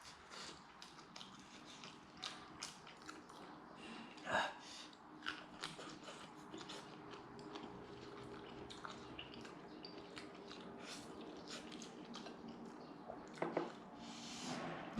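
A person chewing roast chicken, with many small wet clicks and smacks of the mouth.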